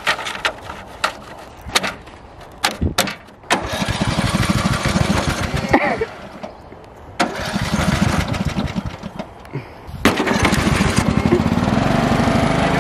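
Craftsman LT1000 riding lawn mower engine: a few clicks and knocks, then from about three and a half seconds in the engine runs loudly with a rapid, even firing beat, broken off twice briefly, and runs steadily from about ten seconds in.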